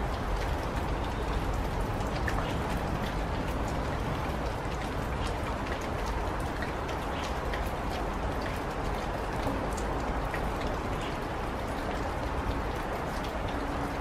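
Light spring rain falling steadily, with many individual drops ticking through a steady patter over a low rumble.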